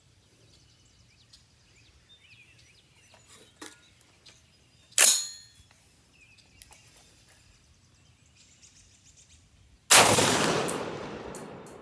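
A sharp crack about five seconds in, then a loud .50 Beowulf AR-15 rifle shot near the end that echoes and fades over about two seconds. These are reduced-load cast-bullet handloads, which are having trouble feeding from the magazine.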